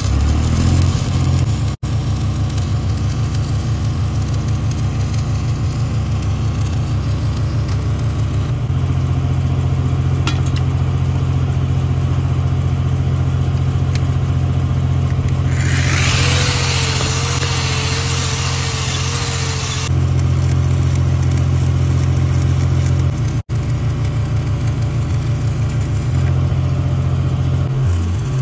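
Engine-driven welding rig running steadily, with the crackle of a 7018 stick-welding arc; the arc hiss is loudest for a few seconds past the middle.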